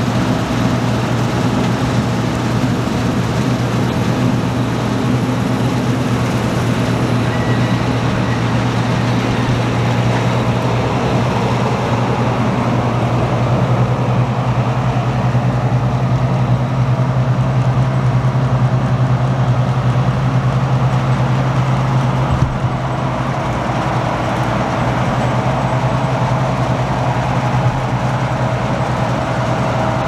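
John Deere 1188 combine harvester running while cutting wheat: engine and threshing machinery give a loud, steady low hum with a constant whine above it.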